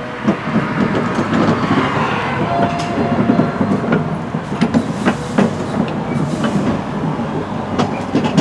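A rail vehicle rolling along jointed track: a steady low running rumble with wheels clicking over rail joints at uneven intervals.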